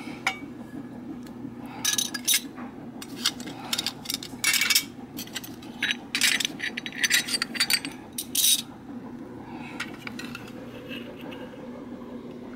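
Lithographed tin toy cups and saucers clinking and rattling against each other and against plastic spoons and forks as they are picked up and handled, in clusters of light clinks from about two seconds in until near nine seconds.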